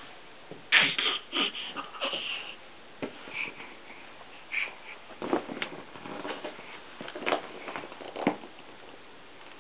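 A baby's short grunts, squeals and babbling sounds, coming in irregular bursts, with a few light knocks mixed in.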